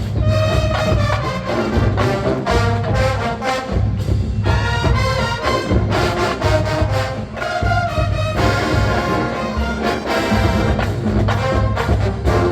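College marching band playing a funk arrangement: brass melody over heavy drums and low brass with a steady beat.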